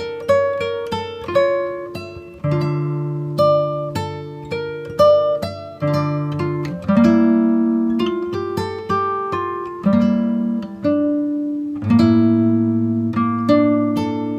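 Background music: acoustic guitar picking a slow melody over ringing bass notes.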